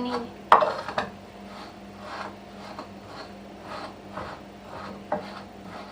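A spoon stirring and scraping dry bulgur with paprika paste in a bowl: soft, repeated scraping, with a sharp click about half a second in and another near the end.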